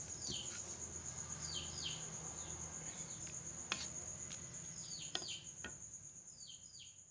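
A cricket trilling steadily in a high pitch, with a bird calling in repeated pairs of short falling chirps. Two light knocks come about halfway through, and everything fades out near the end.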